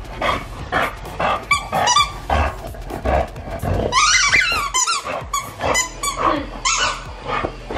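Olde English Bulldog growling while mouthing a toy, with repeated short high squeaks throughout and a burst of rising and falling squeals about four seconds in.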